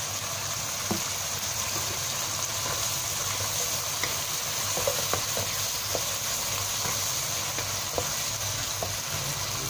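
Okra and white radish sizzling as they are stir-fried in a granite-coated wok: a steady hiss, with a few light taps and scrapes of a spatula against the pan.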